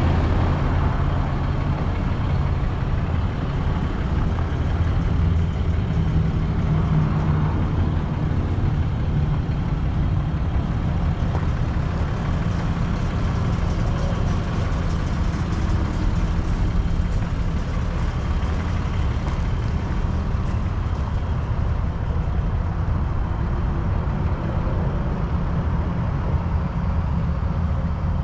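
Ram 5500 work truck's Cummins turbo-diesel engine idling steadily, a deep, even low rumble.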